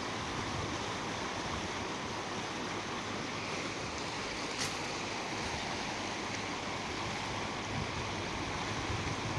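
Steady rushing of a river flowing past the bank, with a single faint click about halfway through.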